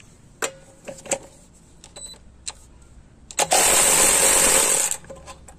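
Craftsman V20 cordless powered ratchet running on a car's lug nut for about a second and a half, loosening a nut that had been torqued to about 41 ft-lb. A few light clicks come before it.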